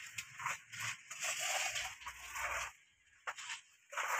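Sand scooped with a plastic cup and poured into the bed of a plastic toy dump truck, with plastic toys scraping in the sand: rustling and scraping in irregular bursts.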